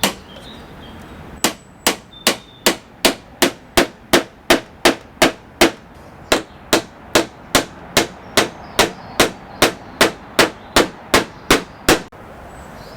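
Hammer driving nails into a wooden batten and a springy door frame: a steady run of blows, about two and a half a second, starting about a second and a half in and stopping shortly before the end.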